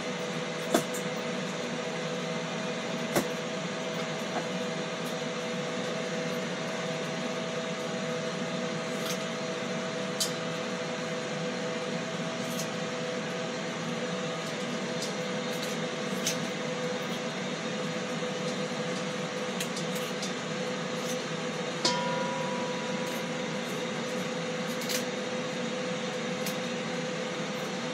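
Steady whirring hum of a Ninja Foodi XL Grill's fan while it preheats on air crisp, with a few sharp snips of kitchen shears cutting through catfish. The tone of the hum changes slightly about 22 seconds in.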